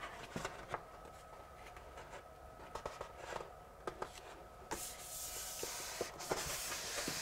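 A large sheet of printed backscene paper being handled and rubbed against the wall by hand: light crinkles and small taps, then a steadier rubbing hiss from about five seconds in as the sheet is pressed and smoothed.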